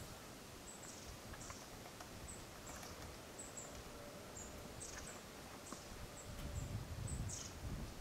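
Short, very high, thin bird call notes repeated at irregular intervals, with a few faint light taps and a low wind rumble rising near the end.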